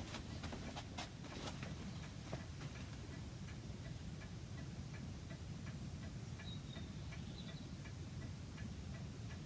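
Long-case (grandfather) clock ticking faintly and evenly.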